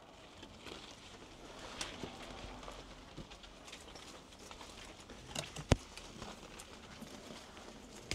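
Dry twigs and undergrowth rustling and crackling as someone pushes through brush on foot, with one sharp crack a little before six seconds in, the loudest sound.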